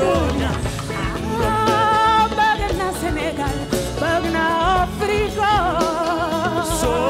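A woman singing long held notes with wide vibrato in phrases over a live band.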